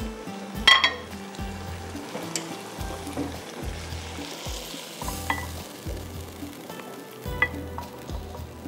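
A spoon scraping and stirring in a hot pan, with a sizzle, as dry-spiced potato bhaji is dished out. A few sharp metal clinks come through, the loudest about a second in.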